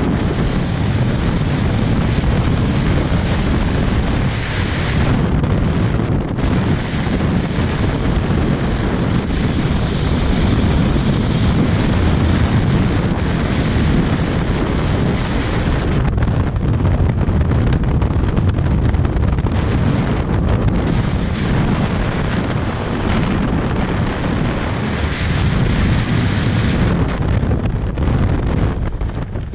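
Freefall wind rushing over the camera's microphone during a skydive, a loud steady roar. Near the end it thins out as the parachute deploys overhead.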